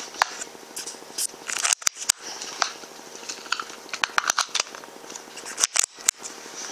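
Scattered sharp clicks and short snaps over a steady low hum. A few louder ones, about two seconds in and again near the end, briefly cut the sound out.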